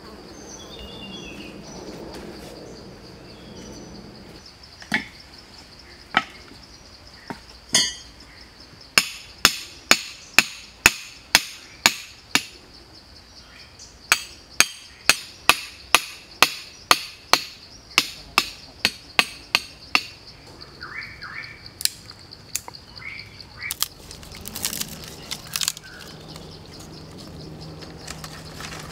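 Sharp wooden knocks of food preparation, a few scattered at first, then steady runs of about two a second, over the steady high-pitched drone of insects.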